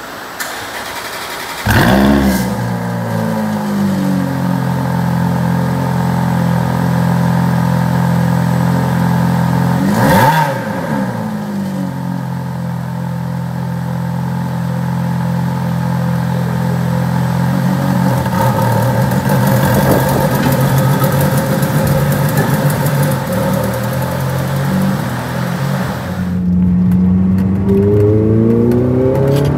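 Ferrari F430's V8 engine started in a repair shop: it cranks briefly, catches about two seconds in with a rev flare, then settles to a steady idle. There is one quick throttle blip about ten seconds in, and the revs climb again near the end. This is the engine run after its F1 twin-disc clutch replacement.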